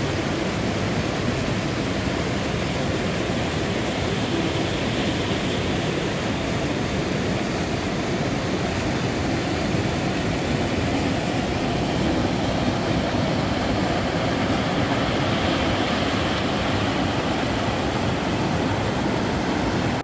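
Mountain stream rushing over boulders in white-water rapids: a steady, loud rush of water.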